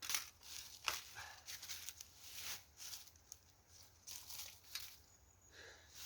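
Dry leaves and sticks rustling and crackling in irregular bursts, with a sharp snap about a second in.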